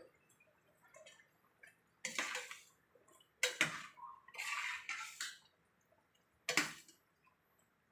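A cooking utensil scraping and knocking against a pan of thick sauce in four short bursts, as carrots are added and stirred in.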